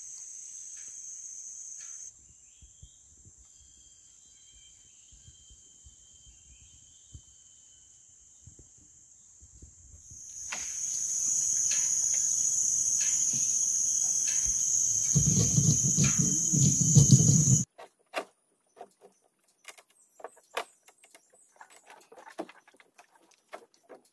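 High, steady drone of forest insects, faint at first and loud from about ten seconds in, with a low rumble under it for the last couple of seconds of that stretch. It cuts off suddenly, and scattered light knocks and rustles follow as a man bends a sapling pole over a wooden boat.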